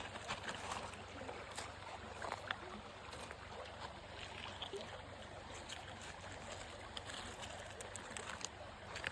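Water running and trickling: a steady rush with scattered small splashes and ticks.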